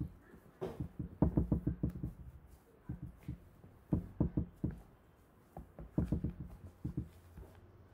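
A spatula knocking against the sides of a plastic tub while stirring a thick glue and shaving-cream slime mixture: three bunches of quick knocks, several a second, with short pauses between.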